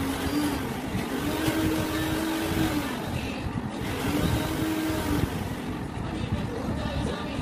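Background music: a low melody of long held notes that slide between pitches, over a busy low rumble.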